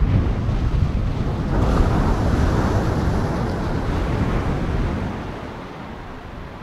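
Rushing wash of ocean surf, heavy and rumbling in the low end, swelling about a second and a half in and then slowly fading away.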